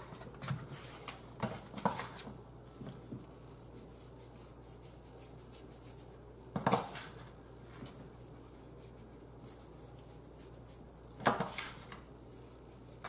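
Metal baking pan clattering as raw chicken thighs in it are handled and turned: a few light knocks at first, then two louder clanks, one about halfway through and one near the end.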